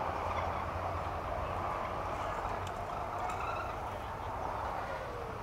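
Indistinct babble of many voices from a crowd of cyclists and walkers, with a steady low rumble underneath.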